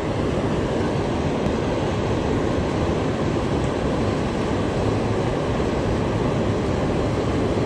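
Steady, even rush of fast-flowing river water.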